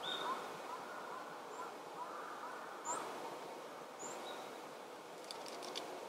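Small wild birds calling in short, high notes over a steady background hum, with softer repeated chirps underneath. A quick run of faint clicks comes near the end.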